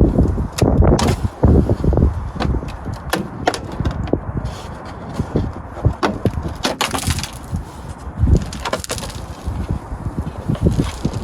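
Irregular cracking, snapping and clunking as a rusted body skirt is pried and pulled off a car's rotten bodywork.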